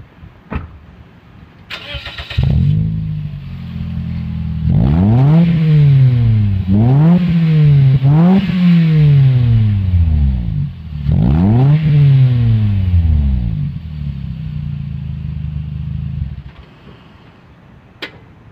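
Scion xB's 1.5-litre four-cylinder breathing through a DC Sports exhaust, AEM cold air intake and OBX header: it is cranked and catches about two seconds in, idles, is revved four times, each rev rising and falling back, settles to idle and is switched off near the end. A single sharp click follows the shut-off.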